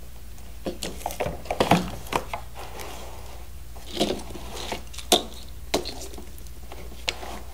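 Plastic toy parts being handled as air hoses are pushed onto the fittings of a toy playset: a scattered run of small clicks and knocks, the loudest cluster about one to two seconds in.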